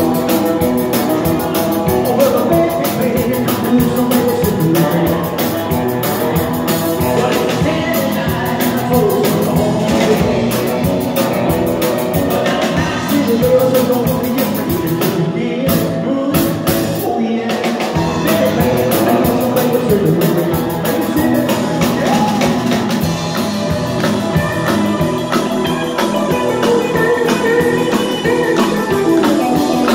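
Live rock-and-roll band playing: a man singing over electric guitar and drums.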